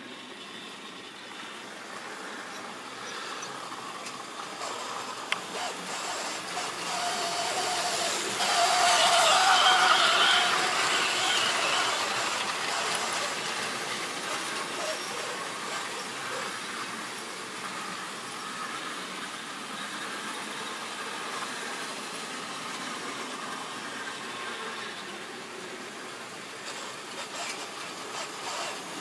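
Model railway train running on the track, its small electric motor and its wheels on the rails making a steady rumbling whirr. It grows louder as it approaches, is loudest about nine to eleven seconds in as it passes close, then slowly fades as it runs away.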